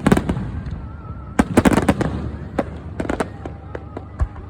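Aerial fireworks bursting: clusters of sharp bangs and crackles in quick succession, then a single deep thump near the end.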